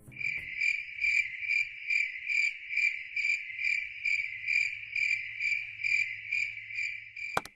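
Cricket chirping sound effect: a steady high trill pulsing about twice a second, cutting off near the end. It is the stock comedy cue for dead silence from an audience after a trick.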